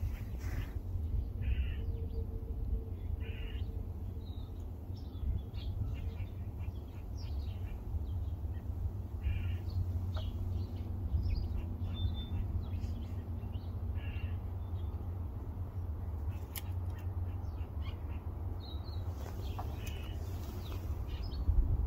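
A crow cawing in short calls now and then, over a steady low rumble.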